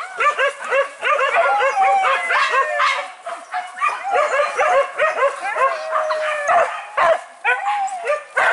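A pack of boar-hunting dogs yelping and barking excitedly, many quick high yelps overlapping, with a few longer drawn-out whines among them; the yelping thins out to a few sharp yelps near the end.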